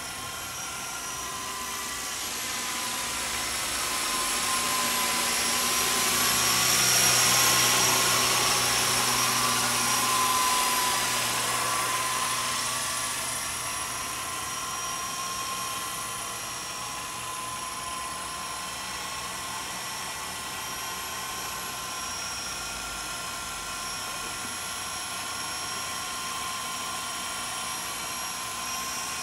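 Walkera Lama 400 electric coaxial RC helicopter in flight, its motors and rotor blades making a steady whine. It grows louder about seven seconds in as it passes close, then eases back to a steady hum.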